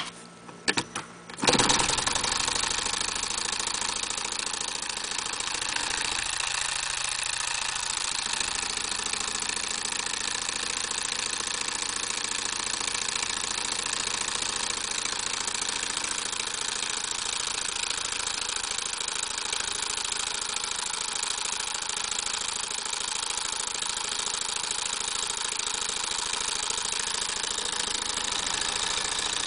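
Le Page toy outboard motor's small electric motor switched on after a few clicks, then running steadily on 6 volts with an even, high-pitched whirr.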